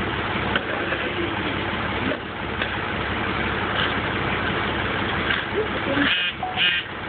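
Loader tractor's diesel engine idling steadily, with a few sharp clicks and two short high-pitched squeaks about six seconds in.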